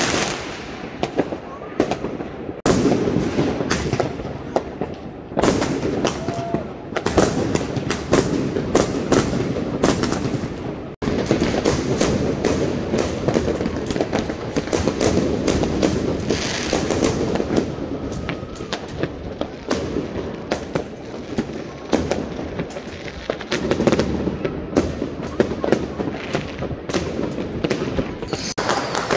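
Dense New Year's fireworks: rockets and firecrackers banging and crackling in rapid, overlapping succession, with a few short whistles among them and a brief break about eleven seconds in.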